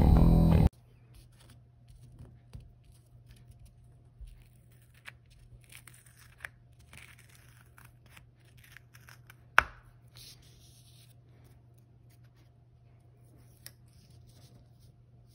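Quiet peeling, crinkling and scratching of a thin self-adhesive pool table spot being pulled up from the cloth, with scattered small clicks and one sharp click about nine and a half seconds in. Guitar intro music ends abruptly just under a second in.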